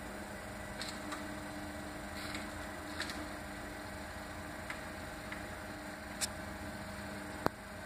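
Robotic infrared hair processor running: a steady electrical hum from its motor and electronics as the infrared arms swing, with scattered light clicks and one sharper click near the end.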